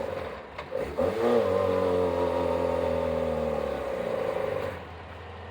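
Off-road vehicle's engine revved in two quick blips, then held at high revs for about three and a half seconds with its pitch slowly sagging under load, before dropping back to a low idle.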